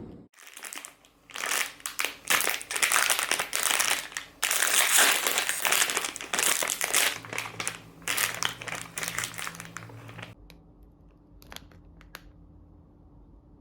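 Packaging crinkling and rustling as it is handled, stopping about ten seconds in, followed by a few faint clicks.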